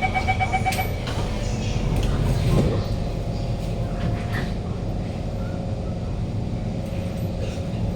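Door-closing chime beeping for about the first second, a louder rumble about two and a half seconds in as the doors shut, then a steady whine from the Kawasaki C151's GTO-VVVF traction motors as the train starts to move, over the running rumble of the car.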